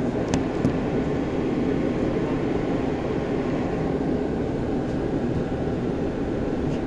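Steady rumble and rolling noise heard inside a moving 2003 Iveco T67 tram, with a short click about a third of a second in.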